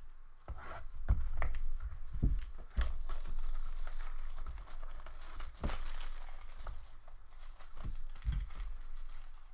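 A trading card box being slit open with a box cutter and the card pack inside unwrapped by hand: wrapper crinkling and tearing, with scattered knocks and clicks of cardboard being handled.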